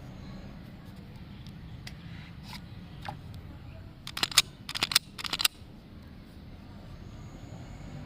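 A quick cluster of sharp mechanical clicks, about a dozen in a second and a half, from a handgun being handled, over a steady low rumble.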